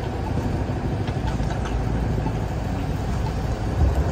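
Steady low rumble of city street and vehicle noise, swelling briefly near the end.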